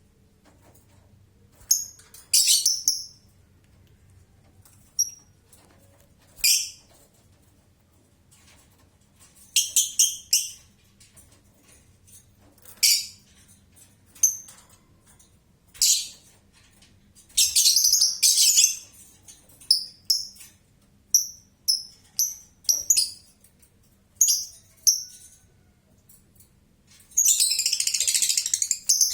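Lovebird chattering in irregular short bursts of high-pitched chirps, with a longer run of rapid chatter of about two seconds near the end.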